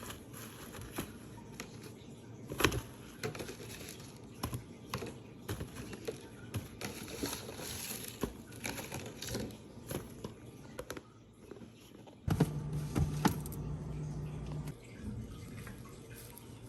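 Groceries being handled and put away: scattered clicks, taps and light rustles of packaging and containers, with a low hum for a couple of seconds near the end.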